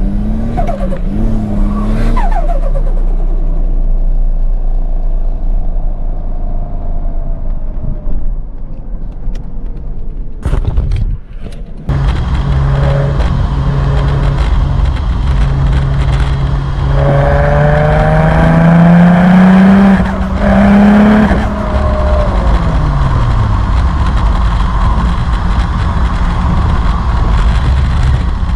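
Nissan Silvia S13's engine running and revving, its pitch rising and falling. After a short break about eleven seconds in, it climbs steadily in pitch for a few seconds under acceleration, then drops back.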